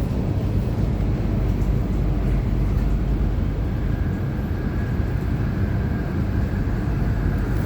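Interior running noise of a Guangzhou Metro Line 5 linear-motor train travelling between stations: a steady low rumble, with a faint steady whine joining about halfway through.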